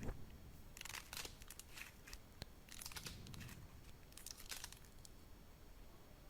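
Crunchy slime being squeezed and pressed, giving faint, irregular crackling and crinkling that stops about five seconds in.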